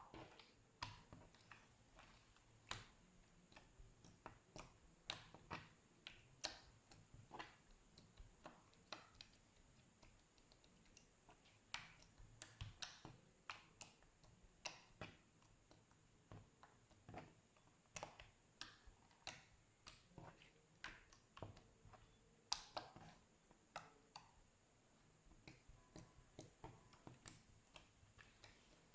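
Slime being pressed and worked by hand, giving irregular soft pops and clicks, sometimes in quick clusters.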